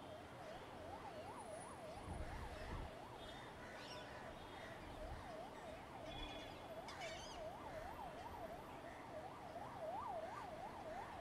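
Faint emergency-vehicle siren in a fast yelp, its pitch sweeping up and down about three times a second, over a low city hum.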